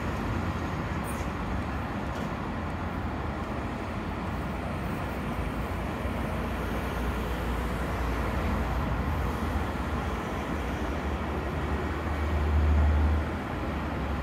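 Hamburg S-Bahn electric train running away along a curving track, heard through a steady background of rail and road traffic noise. A deeper rumble swells about twelve seconds in and drops off a second later.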